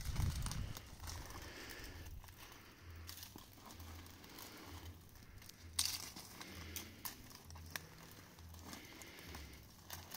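Faint rustling and crackling of footsteps through dry brush, with a sharper click about six seconds in.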